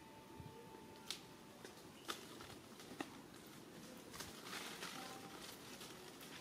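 Faint outdoor background with three sharp clicks about a second apart and a thin, steady high tone during the first second.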